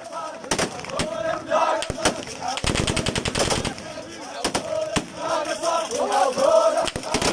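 Gunfire with a crowd of men's voices shouting and chanting underneath: scattered single shots, then a rapid automatic burst lasting about a second midway, then more single shots.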